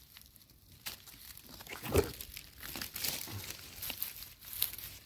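Dry leaves and twigs of forest undergrowth rustling and crackling up close, with one louder thump about two seconds in.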